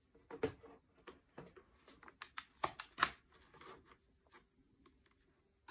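Hands handling a small plastic electric spinning wheel and its power cable, making an irregular run of light clicks and taps. The clicks are thickest about halfway through and thin out near the end.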